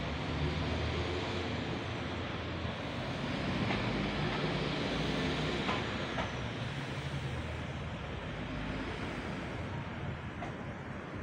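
City street traffic: a steady mix of engine and tyre noise, with one vehicle's low engine drone that fades about nine seconds in.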